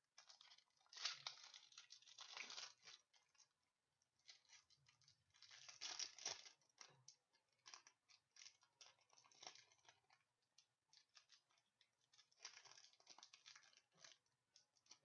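Packaging of a hockey card box being torn and crinkled open: three louder tearing, crinkling stretches with small rustles and clicks between.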